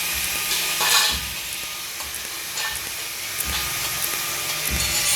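TIG welding arc on stainless steel, a steady high hiss, with a louder burst about a second in.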